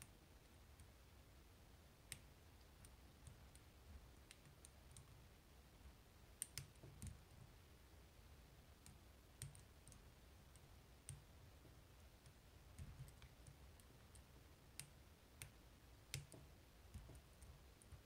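Faint, irregular clicks of a lock pick working the pins and sliders of an Assa Twin Exclusive (Twin 5700) cylinder held under tension, about a dozen over the stretch, as the pins are picked back up after being dropped from an overset.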